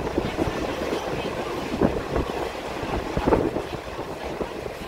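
Passenger train coach rolling along the track, heard at an open window: a steady rumble of wheels on rail mixed with wind rushing over the microphone, and a couple of knocks about two and three seconds in.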